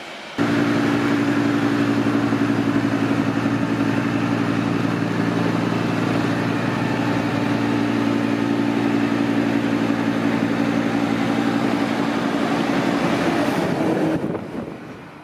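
Rhaetian Railway Ge 6/6 II electric locomotive running through snow toward and past the listener: a loud, steady mechanical hum with several steady low tones over a rushing noise. It starts abruptly about half a second in and fades away in the last second as the locomotive goes by.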